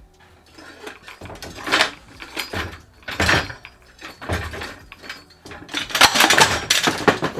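A heavy Mercury 50 hp outboard motor being manhandled off a wooden stand: a string of metallic knocks, scrapes and rattles, then the loudest, longest clatter near the end as the motor comes down.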